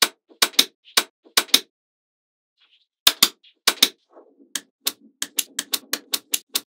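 Small neodymium magnetic balls clicking sharply as blocks of them are snapped together, a few scattered clicks and then a quicker run of about four to five clicks a second near the end.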